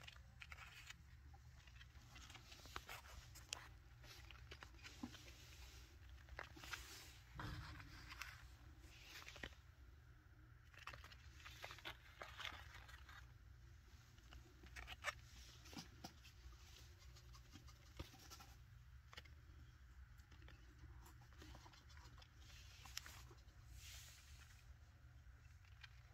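Near silence: faint, scattered ticks and rustles as baby chinchillas scamper over a cloth-covered surface, over a low steady hum.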